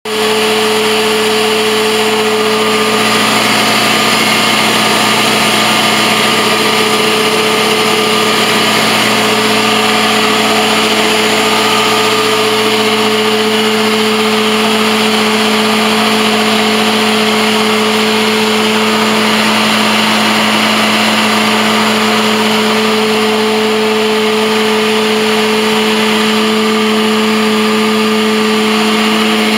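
Truck-mount carpet cleaning machine running steadily on its Honda EFI IGX700 twin-cylinder engine, an even drone with a strong steady tone.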